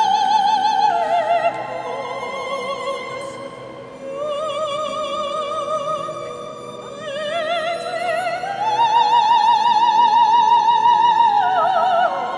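Men's choir singing a slow classical piece, with a high solo line in an operatic style above it. The solo line holds long notes with wide vibrato, climbs to a loud sustained high note in the second half and falls away near the end.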